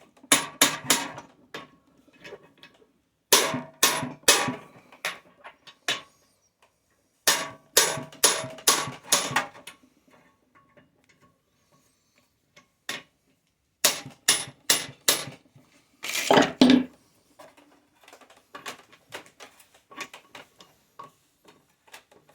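Hammer blows ringing on a Lisle 30750 half-inch-drive manual impact driver, struck in quick bursts of several blows to knock loose a rusted screw that is now loosening. A heavier metal clatter comes about two-thirds through, then faint small clicks.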